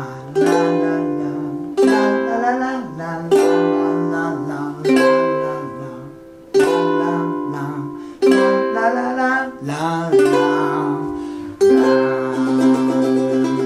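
A man singing 'la la la' over a small thin-bodied G-LABO ukulele. He strikes one chord about every one and a half seconds and lets each ring out, moving between C and G7.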